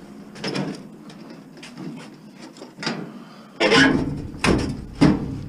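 Sheet-metal parts of a scrap appliance being knocked and scraped while it is pulled apart by hand: a series of irregular clunks and scrapes, the loudest about four seconds in.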